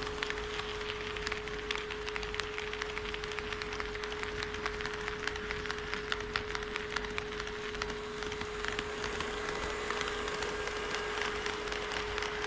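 HO scale model train running on the track: a dense, irregular clatter of small clicks from the wheels over the rail joints, over a steady high hum.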